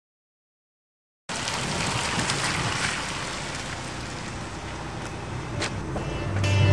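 Steady outdoor background noise that cuts in suddenly after a second of silence, with a single sharp click about five and a half seconds in. Strummed guitar music begins near the end.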